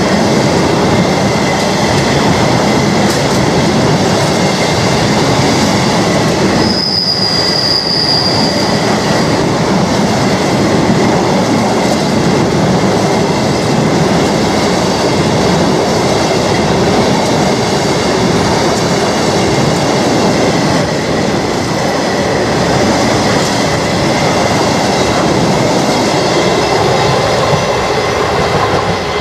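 A long train of empty steel-carrying flat wagons rolling past close by: a loud, steady rumble and rattle of wheels on rail. A high wheel squeal sounds briefly about seven seconds in, and the noise eases near the end as the last wagon passes.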